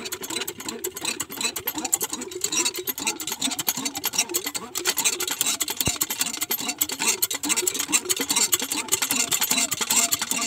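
Small single-cylinder stationary engine driving a homemade water pump, running steadily with a fast, even ticking knock.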